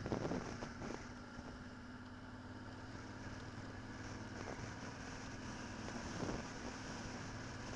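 Motorcycle engine running at a steady pitch while riding along a dirt track, with wind noise and a couple of faint knocks.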